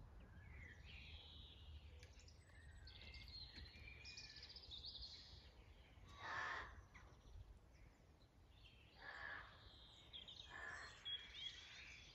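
Faint outdoor birdsong: scattered high chirps and twitters throughout, with two louder, lower bird calls about six and nine seconds in, over a faint low rumble.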